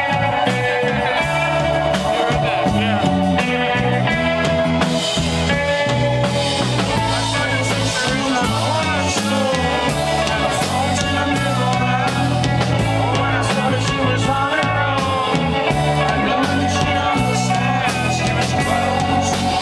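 Live rock band playing a song: a strummed acoustic guitar, an electric guitar and a drum kit with a steady beat, under a male lead vocal singing.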